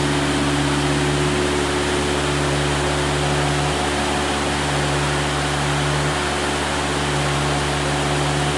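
Heavy rain falling on a corrugated metal roof and pouring off its edges in a steady hiss, with a steady low hum underneath.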